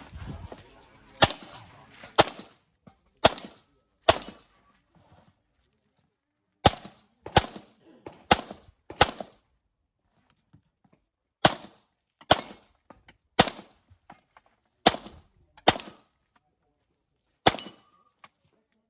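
A handgun fired in single shots while a practical-shooting stage is run: about fifteen sharp reports, roughly one a second, in groups of two to four with short pauses between the groups.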